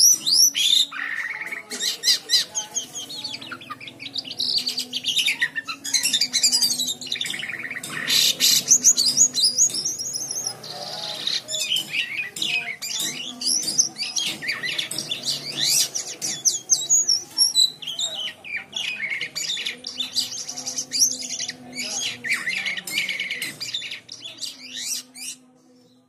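Caged white-shouldered starling (jalak kapas) singing continuously: a long, varied stream of rapid chirps, whistles and sweeping notes, broken by brief pauses.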